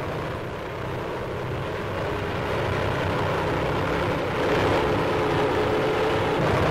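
Propeller engines of the Hindenburg airship droning steadily, growing louder over the first few seconds as the ship passes low.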